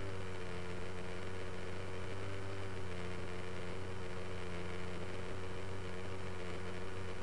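Align T-Rex 600 nitro RC helicopter's engine and rotor running steadily at idle while the helicopter rests on its skids, heard close up through a camera mounted on the helicopter: an even hum that holds one pitch.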